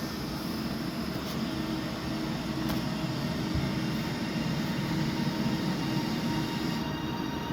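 Train running past on the main line: a steady rumble with a low hum and a few faint clicks.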